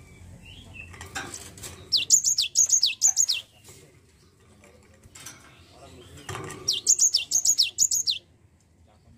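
Cinereous tit singing two quick bursts of about half a dozen sharp, high notes, each note sliding downward, the bursts about four seconds apart. A soft knock comes just before each burst.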